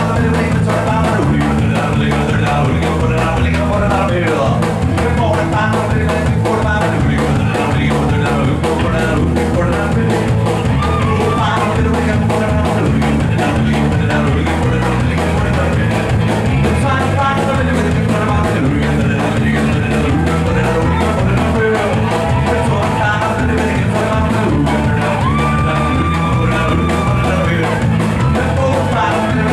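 Live rock-and-roll band playing a very fast number on drum kit, electric guitar and keyboard, with a singing voice over it.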